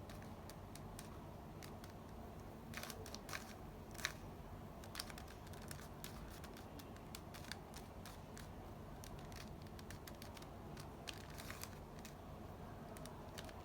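Faint, irregular plastic clicks and handling sounds from a Rubik's cube being handled and turned, with a few sharper clicks scattered through.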